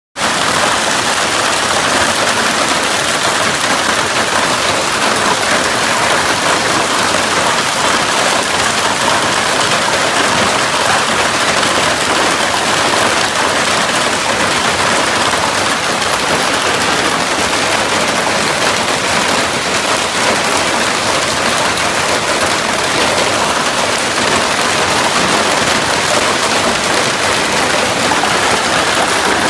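Heavy hail pelting down in a dense, steady clatter on a pickup truck, plastic wheelie bins and the ground.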